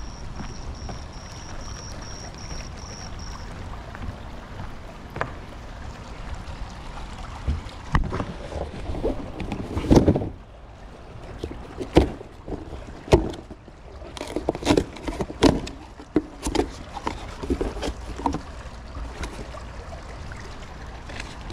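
A cardboard case of plastic jugs of liquid pool chlorine is set down on a wooden-look deck with a heavy knock about ten seconds in. Further knocks follow, then a run of clicks and scrapes as the box flaps are pulled open, over a steady hiss.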